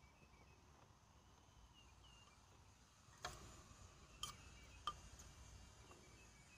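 Near silence with three faint, sharp clicks about three, four and five seconds in.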